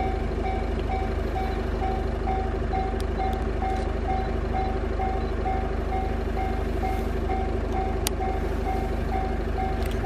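Japanese level-crossing warning bell ringing, an electronic ding repeating about twice a second, warning of an approaching train.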